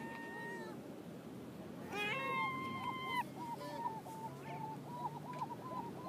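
A gull calling: a short mewing note at the start, then about two seconds in a loud, drawn-out wail that breaks into a fast run of short repeated yelps, several a second. This is the gull's long call.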